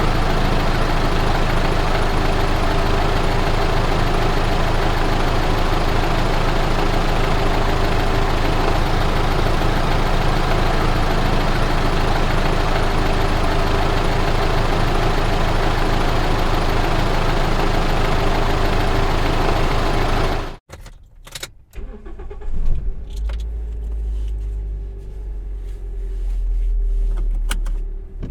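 A car engine runs steadily and loudly for about twenty seconds, then cuts off abruptly. It is followed by a quieter stretch of clicks and a low engine rumble that swells near the end.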